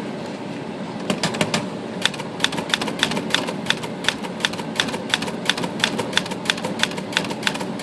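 Remington Quiet-Riter manual typewriter being test-typed: sharp keystrokes start about a second in, a quick few, then an even run of about four strikes a second. It is typed pretty soft to check that the freshly adjusted type bar trip now prints without skipping letters.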